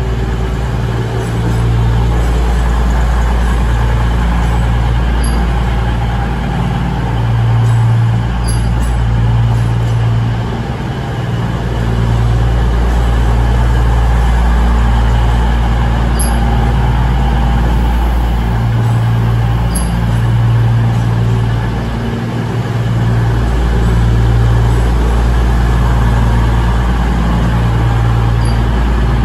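CrossCountry Class 220 Voyager diesel multiple unit's underfloor Cummins diesel engines running as the train moves slowly alongside the platform: a loud, steady low drone that swells and eases a little.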